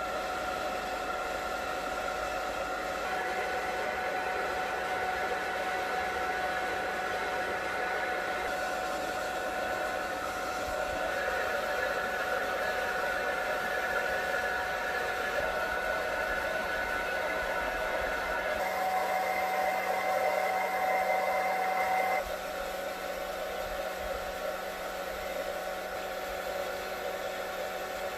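Handheld hair dryer running steadily, blowing air to dry oil paint, a steady rush of air with a motor whine. The whine shifts a little about two-thirds through, and the dryer cuts off at the end.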